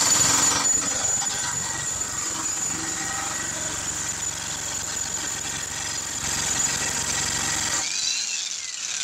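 XtremepowerUS electric demolition jackhammer hammering its chisel bit into a concrete slab, running steadily. It stops near the end, its motor whining down in a falling tone.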